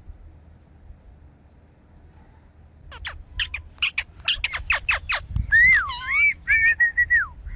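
Indian ringneck parakeet calling. After about three quiet seconds it gives a quick run of roughly a dozen sharp, downward-sweeping chirps, then longer whistled calls that glide down and rise again, some held level.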